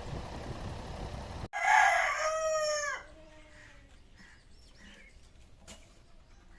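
Steady rumbling noise that cuts off abruptly, then a rooster crows once, loudly, for about a second, falling in pitch at the end. Faint soft clucking follows.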